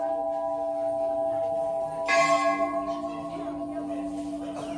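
Temple bell ringing, its tone held steady and slowly fading, struck again about two seconds in.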